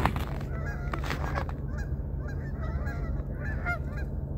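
A flock of geese honking, many short overlapping calls all through, over a steady low hum.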